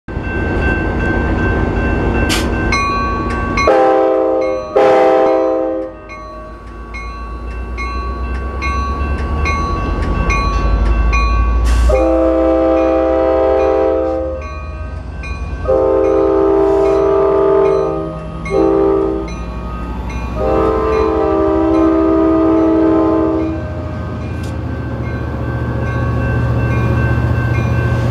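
Sounder commuter train's diesel locomotive departing: two short horn blasts, the signal that it is releasing brakes and proceeding, then a long, long, short, long horn sequence for a grade crossing. A bell dings steadily through most of it, and the engine's low rumble builds near the end as the train pulls away.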